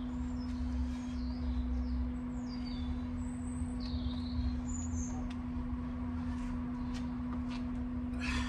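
Birds chirping and calling in short rising and falling notes, mostly in the middle stretch, over a steady low hum.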